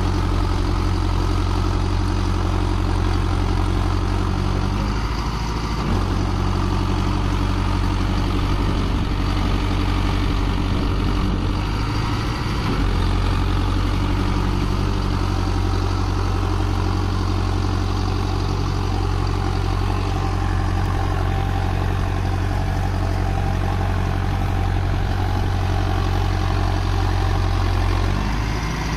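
Mahindra Arjun Novo 605 DI-i 4WD tractor's four-cylinder diesel engine running steadily under load as it hauls a loaded trolley through deep paddy-field mud. The engine note dips briefly three times.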